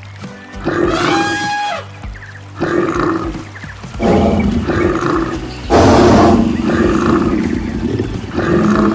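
Animal roars and calls repeating every second or so over background music.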